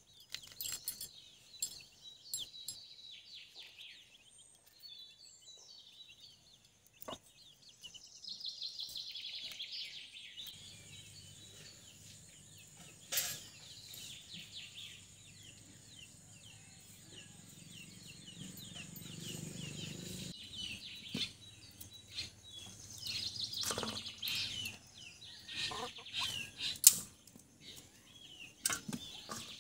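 Birds chirping and calling in the background, with scattered sharp clicks and taps and a faint low hum through the middle stretch; the loudest thing is a single sharp click near the end.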